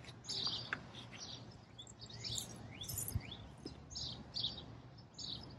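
Small birds chirping, many short high chirps scattered throughout, with a few quick upward-sliding notes about halfway through.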